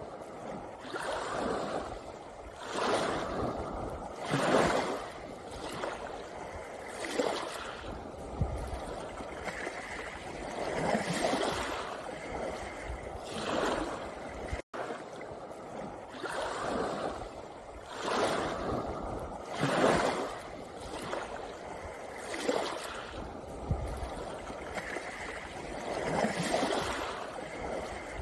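Small sea waves washing onto a pebble beach, each surge swelling and fading every two to three seconds, with a momentary dropout about halfway through.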